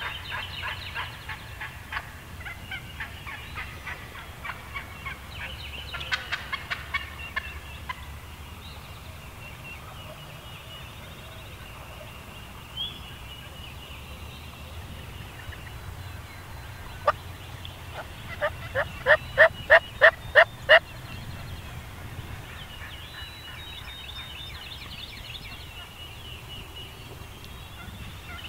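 Wild turkeys calling: scattered short clucking calls through the first several seconds, then, past the middle, a loud run of about eight evenly spaced calls lasting a couple of seconds.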